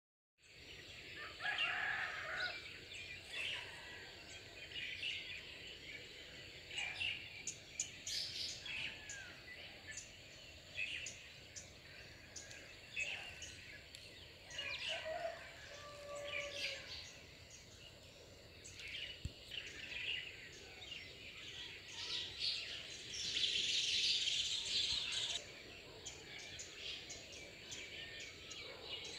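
Many birds chirping and calling at dawn, short overlapping calls with a louder, denser burst of calling a little past two-thirds of the way through, over a faint steady high-pitched hum.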